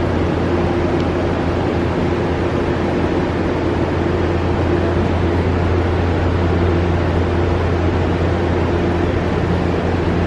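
Steady low hum and rumble of a Shinkansen bullet train standing at the platform, with a faint steady tone over it.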